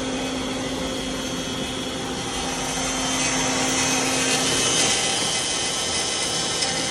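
X-Carve CNC router running, its spindle bit cutting a logo out of a panel coated with bed liner: a steady machine hum under a hiss that grows louder from about three seconds in and eases off about two seconds later.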